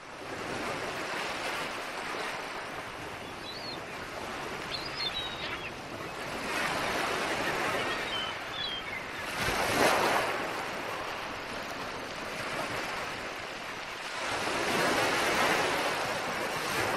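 Sea surf washing onto a sandy beach, swelling and easing three times, with wind. A few faint, short, high bird calls in the first half.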